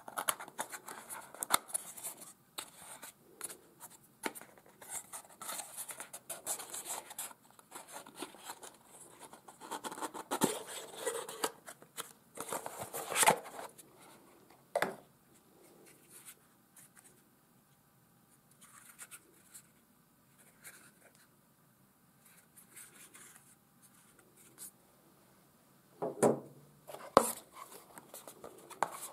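Hands opening a small cardboard Potensic ATOM SE battery box and handling the drone battery: papery rustling, scraping and small clicks, busy through the first half and sparse in the middle, with a couple of sharper knocks near the end.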